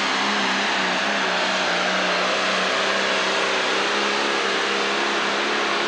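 John Deere pro stock pulling tractor's turbocharged diesel engine at full throttle under heavy load while dragging the weight-transfer sled, running loud and steady at a nearly constant pitch.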